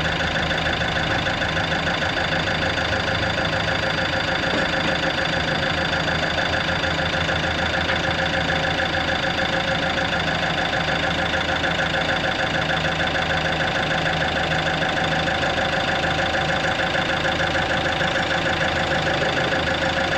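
Diesel engine of a John Deere 210G excavator running at a steady idle.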